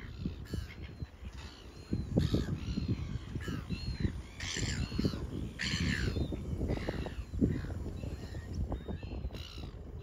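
A flock of gulls calling over and over, short harsh overlapping squawks, loudest about four and a half to six seconds in.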